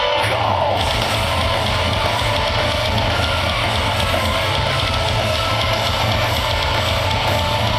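A metalcore band playing live over a festival PA: heavy distorted electric guitars and a pounding drum kit, heard from within the crowd.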